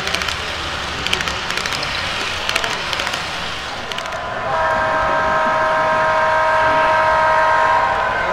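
HO scale model passenger cars clicking over the track joints as they pass. About halfway in, a sound-equipped HO scale diesel locomotive sounds a long multi-note horn chord through its small speaker, held for about three and a half seconds.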